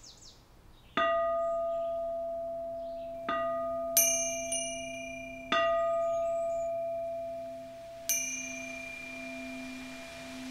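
Music intro of struck bells: about six strikes, one after another, each left to ring and fade slowly, over a low sustained tone that swells near the end.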